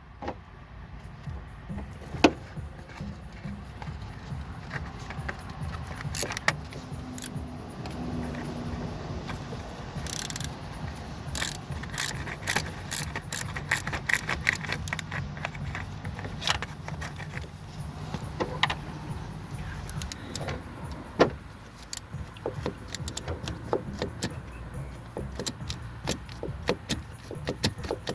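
Metal hand tools clicking, clinking and rattling in irregular short strikes, over a steady low hum.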